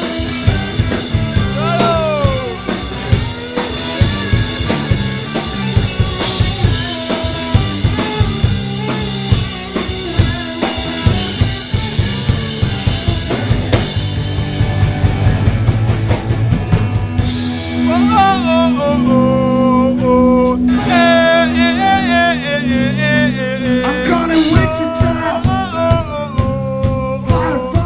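Live rock band playing loud: electric guitars over a full drum kit with busy snare and bass drum. About two-thirds of the way in the band settles on a held low note while a high lead line with bends and vibrato comes to the front.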